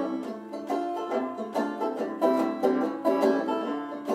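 Plucked acoustic string accompaniment playing a short instrumental passage of an old-time song, with quick picked notes and no singing.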